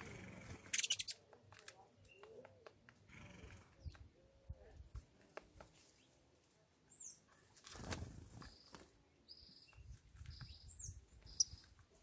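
Small finches and a ground dove at a seed feeder: wings flutter as birds land and take off, briefly about a second in and again near 8 seconds, with short high chirps in the second half and a dove's low coos in the first few seconds.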